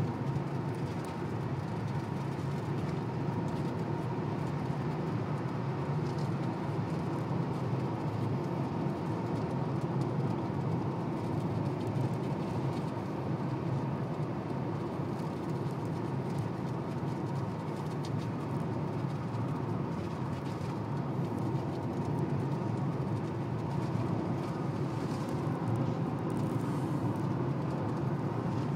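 Steady road noise inside a car driving at highway speed: tyres on the road and the running car, heard from the cabin.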